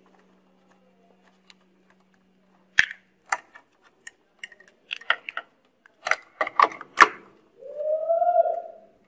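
Hard plastic clicks, knocks and rattles as the washing machine's line filter box and its wire connectors are handled and fitted back into place, sparse at first and coming thick and fast near the end. A brief tone that rises and falls follows the last clicks.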